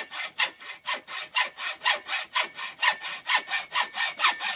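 Hand hacksaw cutting through metal Unistrut strut channel in quick, even back-and-forth strokes. A faint steady ringing note joins the strokes about halfway in.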